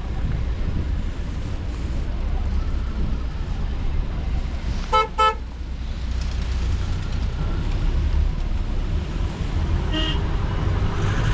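Ute engine and road rumble heard from its open load bed, with a vehicle horn giving two quick toots about five seconds in and a fainter short beep near the end.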